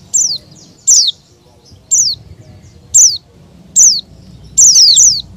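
A bird calling: loud, short, high-pitched notes that drop sharply in pitch, repeated about once a second, with two in quick succession near the end.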